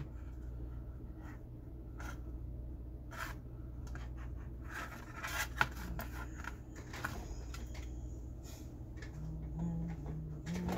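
Small handling noises as a stairlift control circuit board with a heat sink is picked up and moved about on a workbench: scattered clicks, scrapes and rubs over a steady low hum.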